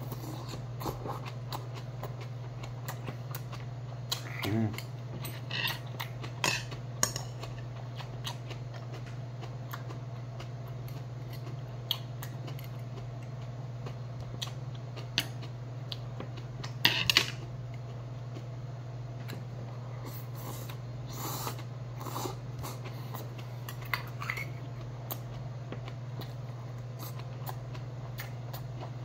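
Mealtime eating sounds: a metal spoon clicking and scraping against a stainless-steel rice bowl now and then, with chewing, over a steady low hum. The sharpest clatter comes about seventeen seconds in.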